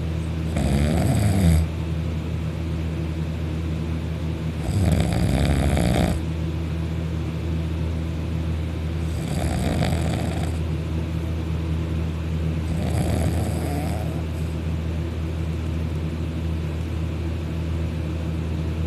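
Loud snoring: four long, rasping snores about four seconds apart, over a steady low hum.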